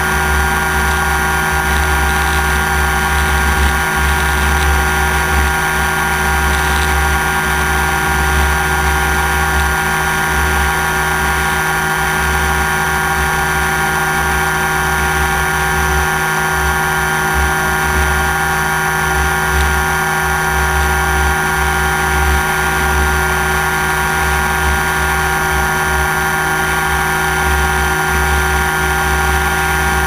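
Multirotor drone's electric motors and propellers whining steadily, heard close from the drone's own camera: several steady tones over a low hum, holding the same pitch throughout.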